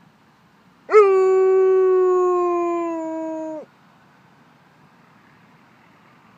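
Alaskan Malamute giving one long howl, a 'woo' in answer to a fire engine siren. It swoops up sharply about a second in, holds a steady pitch that sags slightly, then stops abruptly.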